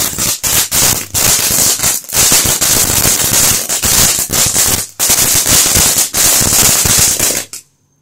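Ground-level fireworks going off in a rapid, continuous string of sharp cracking pops. The bangs stop abruptly near the end.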